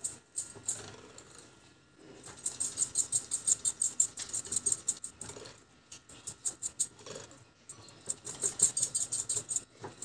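Wire balloon whisk beating oil into thin cake batter in a glass bowl: rapid clicking of the wires against the glass, several strokes a second, in three runs with short pauses between.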